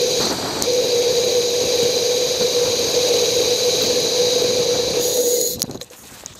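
Bicycle ride audio sped up: wind and bike noise turned into a steady, high mechanical whine over a hiss. It cuts off about five and a half seconds in, leaving quieter noise and a few clicks.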